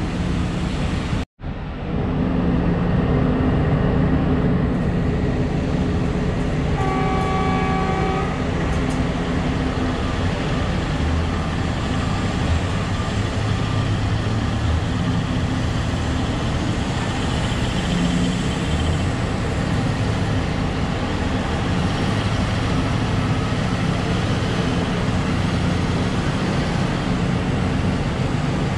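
Large diesel mining machines run steadily: an excavator working alongside idling haul trucks. A single horn blast lasting about a second and a half sounds about seven seconds in.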